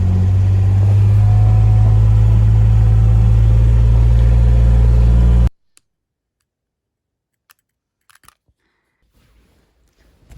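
A vehicle engine running steadily with a deep hum, which cuts off abruptly about halfway through, leaving near silence with a few faint clicks.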